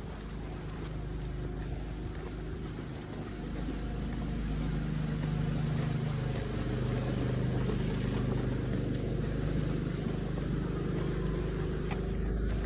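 A vehicle engine running steadily, with a low hum that grows louder about four seconds in.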